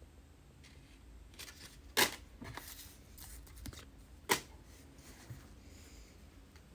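Handling noise from a cardboard authenticity card and a shoebox: soft rustling and light scraping, with two sharp taps a couple of seconds apart.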